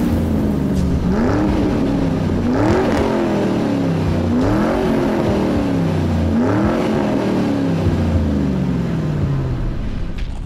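Car engine revving in repeated blips, the pitch climbing and falling about five times over a low rumble, trailing off near the end.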